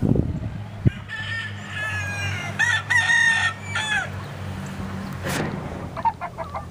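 A rooster crowing: one long crow, about three seconds, starting about a second in, followed near the end by a quick run of short calls.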